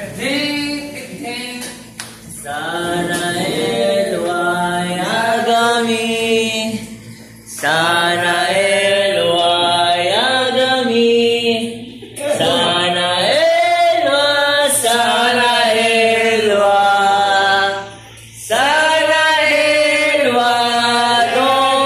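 Unaccompanied singing: a song sung in four long phrases, with held, wavering notes and short breaks between them.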